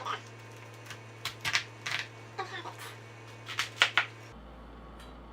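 Knife cutting into the dense core of a cauliflower: a series of short, sharp crunching cracks and knocks, the loudest about four seconds in.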